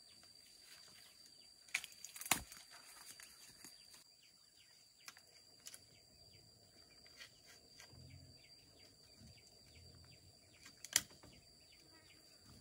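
Bamboo poles knocking against each other as they are handled, with a few sharp knocks, the loudest about two seconds in and again near the end. Faint chirps and a steady high-pitched hum run in the background.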